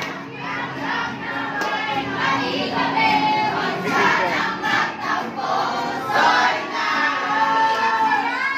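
A group of young people singing together in chorus, accompanied by a strummed acoustic guitar.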